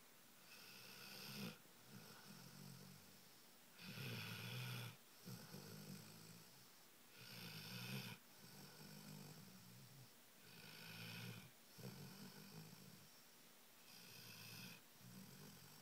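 A sleeping dog snoring quietly in slow, regular breaths, about one every three seconds. Each breath has a low rattle and a breathy hiss.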